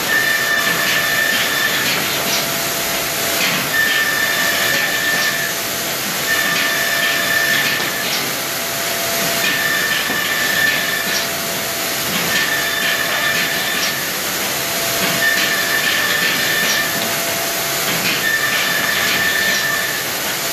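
Woodworking panel machinery running with its dust extraction: a loud steady hiss of rushing air, with a high tone that sounds for about a second and a half and repeats every two to three seconds as the machine cycles.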